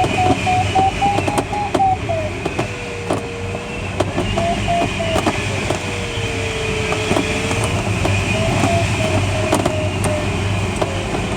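Airflow rushing over the cockpit of a Schleicher ASK21 glider in flight, with a variometer tone that swings up and down in pitch. Spells of higher, chopped beeps, a sign of climbing in lift, alternate about three times with a lower, steady tone that sags, a sign of sinking air. Scattered sharp clicks and knocks come through with the wind noise.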